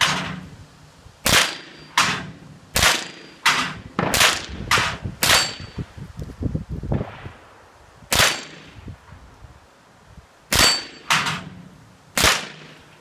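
Firearm shots, about a dozen at an uneven pace, several of them followed by a short high ring of a bullet hitting a steel target.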